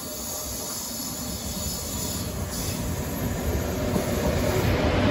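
SNCF Series 310000 TGV Euroduplex double-deck high-speed train approaching along the platform track and passing close by, its rolling noise growing steadily louder.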